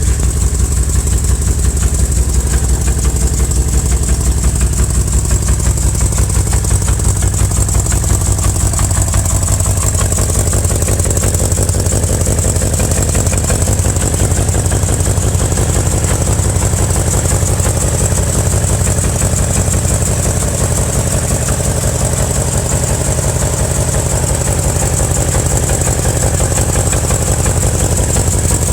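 2000 BMW M5's 4.9-litre S62 V8 engine idling steadily, heard from underneath the engine, with a knocking sound that the owner is trying to track down.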